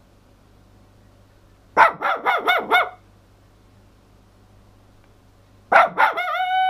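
Toy poodle barking: a quick run of about five short barks about two seconds in, then after a pause two more barks that run into a longer, held howling note near the end.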